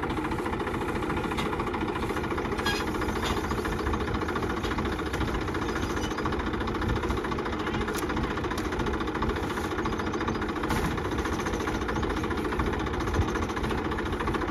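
Tractor engine idling steadily, with a few faint clicks over it.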